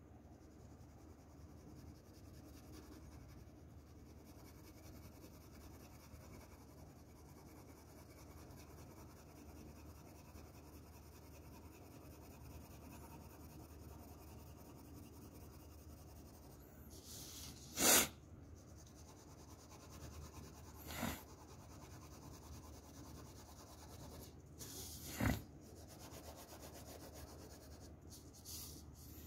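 Faint, steady scratching of a shading pencil rubbing over paper, broken four times by short sharp noises, the loudest a little past halfway.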